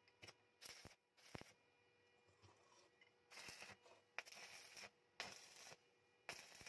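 Stick (arc) welder striking short tack welds on small steel pieces: a string of separate bursts of arc crackle and hiss, the longer ones, each about half a second, in the second half.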